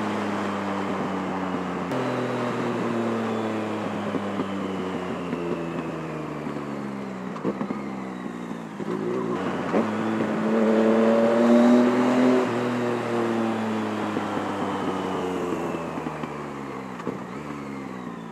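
Yamaha MT-09 inline-three with a carbon-fibre M4 decat exhaust on the move, heard from inside the rider's helmet. The revs fall as it slows, with two sharp pops from the exhaust partway through. The revs then climb in a hard acceleration a little past the middle, loudest there, and fall away again toward the end.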